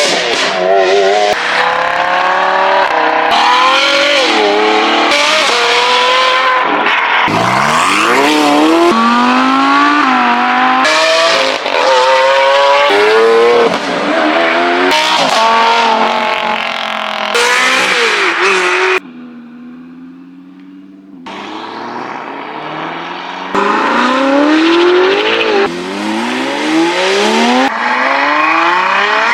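High-performance supercar engines revving hard and accelerating, the engine note climbing through the revs and dropping back at each gear change, in a string of short clips cut one after another. A quieter stretch comes about two-thirds of the way through before the engines rev again.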